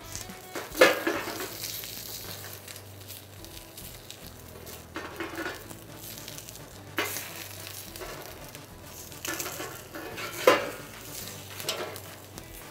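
A whole red bell pepper sizzling in hot olive oil in a copper frying pan. About five sharp metallic clanks come through the sizzle, the loudest about a second in, as the pepper is turned with metal tongs against the pan.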